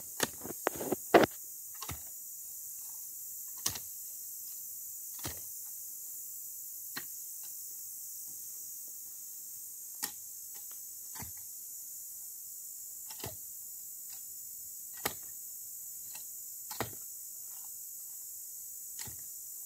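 A manual post-hole digger jabbed into the soil: irregular sharp thuds, a quick cluster in the first second or so, then one every second or two, over a steady high insect hiss.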